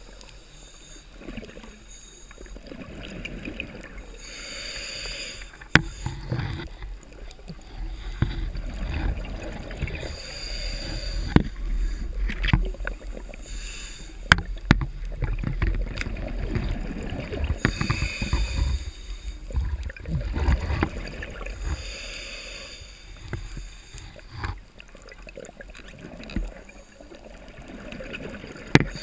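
Underwater noise from a diver: breathing that hisses every few seconds, with bubbling low rumbles in between. Several sharp clicks or knocks stand out, the loudest at intervals of a few seconds.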